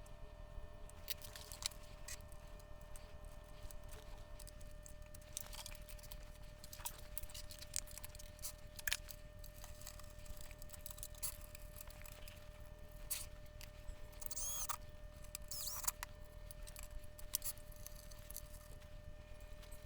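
Scattered small clicks and taps of hand work on an electronics bench, with a faint steady hum and a brief high squeak about fifteen seconds in.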